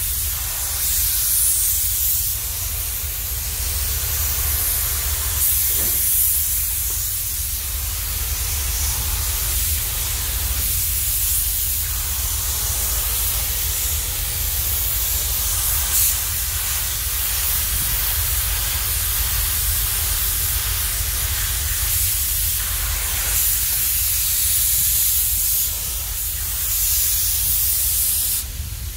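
Gravity-feed compressed-air paint spray gun hissing as it sprays a finish coat of paint, swelling and easing in long passes over a steady low rumble, with the hiss dropping away just before the end.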